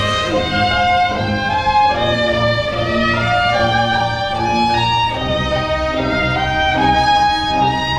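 Student orchestra playing, with violins carrying sustained melodic notes over lower strings holding bass notes.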